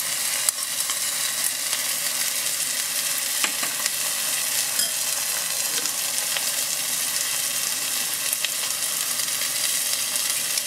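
Chicken and vegetables frying in a hot wok, with soy sauce and oyster sauce just added: a steady sizzling hiss with a few faint ticks.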